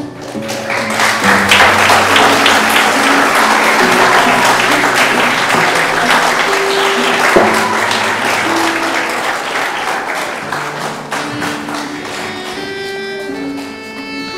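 Audience applauding over instrumental background music. The clapping swells up about a second in and dies away over the last few seconds, leaving the music playing on its own.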